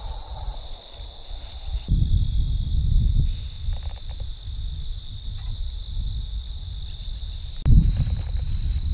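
Insects chirping in a steady high drone with quick repeating pulses. Under it a low rumble of wind and rustling through dry grass swells about two seconds in and comes back suddenly near the end, where it is the loudest sound.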